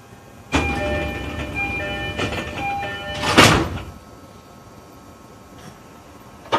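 An E531-series commuter train closing its doors just before departure: a few short chime tones over a rushing noise, swelling into a loud hiss, followed by a sharp knock at the very end.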